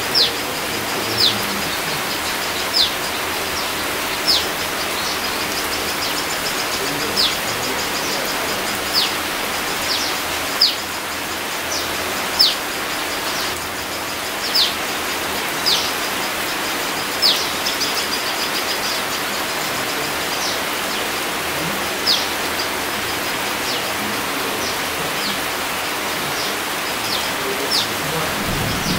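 Steady rain falling on leafy foliage. Over the rain, a bird repeatedly gives short, high call notes that slide downward, one every second or two.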